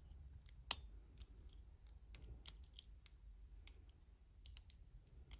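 Faint, irregular clicking of a half-diamond lock pick working the pins of a key-in-knob pin-tumbler cylinder under tension, with one sharper click a little under a second in.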